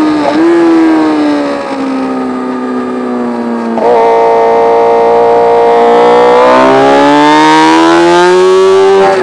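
Racing motorcycle engine heard on board: its pitch falls and the level eases for the first few seconds as the bike slows through a corner, then it steps up about four seconds in as the throttle opens. From about six and a half seconds it rises steadily under acceleration until an upshift drops the pitch near the end.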